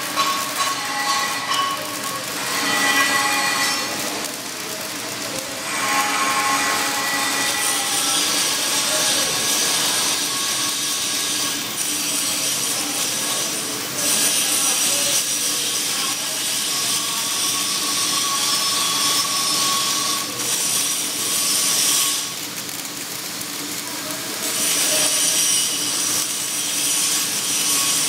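Flux-cored arc welding on carbon steel plate: the arc gives a steady hiss, dropping away for a couple of seconds around four seconds in and again a little past twenty seconds.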